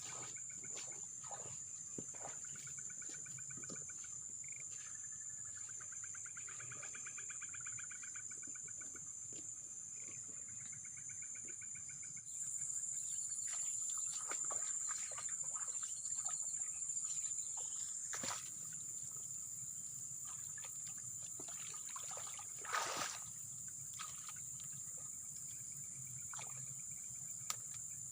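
Steady high-pitched chorus of crickets and other insects, which grows louder about twelve seconds in. In the first half there are pulsed trilling calls lower down, and short clicks and rustles of handling are scattered throughout, with one louder rustle near the end.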